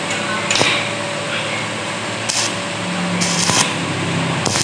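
Stick arc welding on a motorcycle gear selector: the electrode's arc crackles and sputters in several short bursts as it is struck on the worn tip, over a low steady hum. The weld is building up the cut-away metal of the selector so that 3rd gear will stop slipping out.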